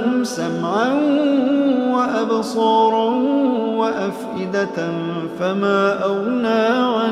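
A man reciting the Quran in a slow, melodic chant, holding long notes and turning the pitch in ornamented phrases that break every second or two.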